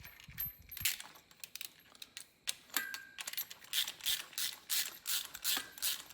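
Socket ratchet wrench clicking in short, even strokes, about two to three a second, as bolts are run in. This follows a few scattered metallic clinks.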